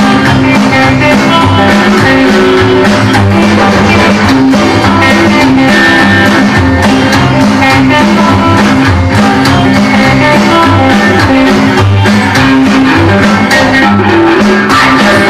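A rock and roll record playing loud: a guitar-led stretch over a steady beat, with no singing.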